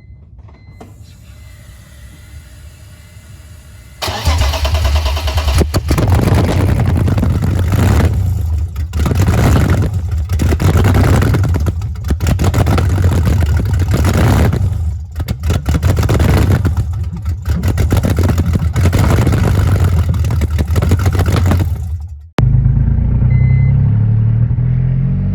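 A car engine starts suddenly and is revved repeatedly, swelling and dropping back about every two seconds. It cuts off abruptly near the end, and a lower, steadier engine rumble follows.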